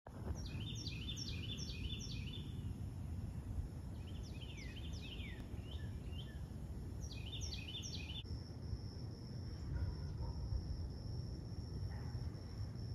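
A songbird sings three short phrases of quick, repeated down-slurred notes. From about eight seconds in, a steady high insect buzz comes in. All of it sits over a faint low rumble of outdoor background noise.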